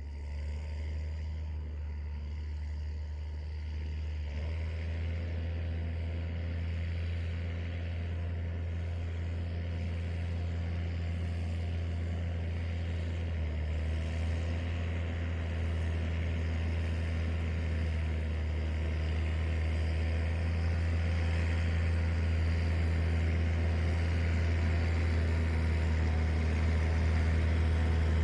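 New Holland T7.060 tractor's six-cylinder diesel engine running at a steady engine speed: a low, even drone that grows gradually louder.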